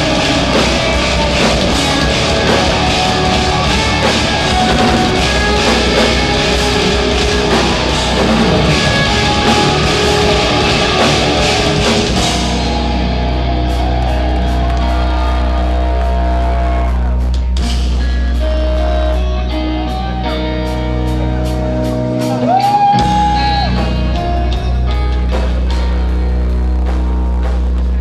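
Instrumental progressive metal played live: distorted guitars and drums. About twelve seconds in the drums and the bright top end drop away, leaving a sustained deep low note under clean guitar lines with a few bent notes. The low note cuts out briefly just before a bend near the end.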